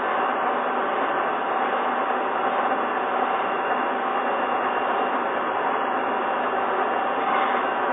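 Gear-cutting machine tool running steadily, a continuous even mechanical noise with a faint steady hum.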